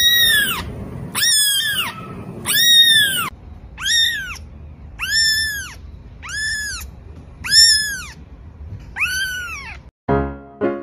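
A very young kitten mewing repeatedly in high-pitched calls, each one rising and then falling in pitch, about eight in all at a little over one a second. Piano music starts near the end.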